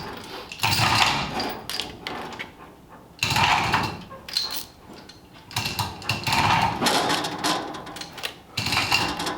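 Metal tools and engine parts clanking and rattling in several short bouts while an engine is worked into a car chassis.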